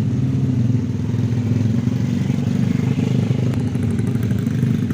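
Honda Tiger motorcycle engine running steadily at low, even revs, with no rise or fall in pitch.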